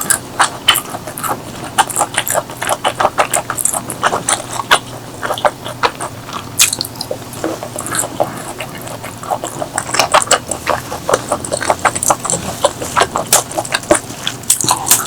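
Close-miked eating: irregular chewing and wet mouth clicks, several a second, thinning out briefly around the middle.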